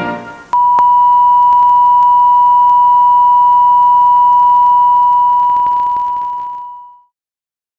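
Television test-pattern tone: one steady, high, pure beep that starts about half a second in, holds, and fades out near the end, the sound of a station off the air after sign-off.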